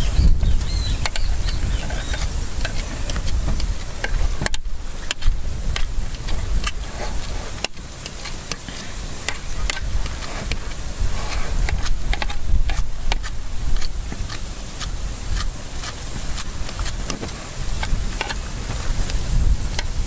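Hands crumbling hard-boiled egg yolks in a plastic bowl, many small clicks and taps over a constant low rumble.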